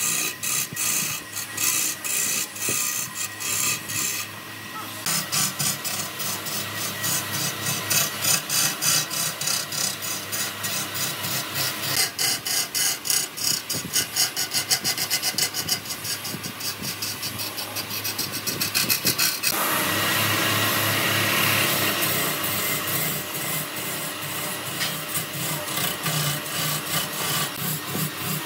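A tool cutting or scraping wood in fast, evenly repeating rasping strokes. About twenty seconds in it changes to a steadier, brighter hiss.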